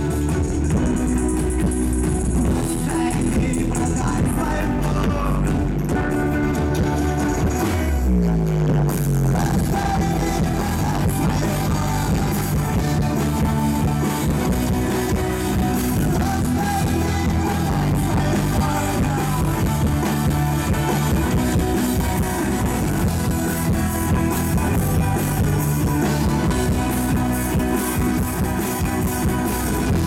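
Live rock band playing: electric guitars, bass and drums, with a violin and a male voice singing. About eight seconds in there is a falling slide in the low end before the full band carries on.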